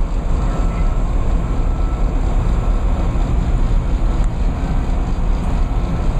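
Steady low rumble of vehicle and road noise.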